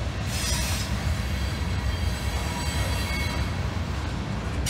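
CSX freight train of covered grain hopper cars rolling past on the main line: a steady low rumble of steel wheels on the rails.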